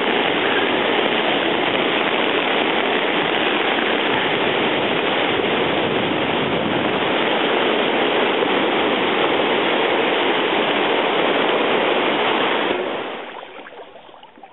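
Creek in flood rushing through the weir, a steady loud rush of churning water that fades out near the end.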